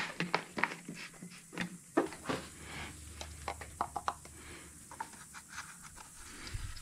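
Scattered light knocks, taps and rubbing of plastic as an oil funnel is handled and lifted out of an engine's oil filler neck.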